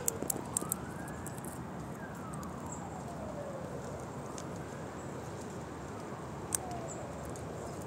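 Squirrel cracking and gnawing nut shells: a few sharp cracks within the first second and a single crack about six and a half seconds in, over steady background noise with faint, slow rising and falling whines.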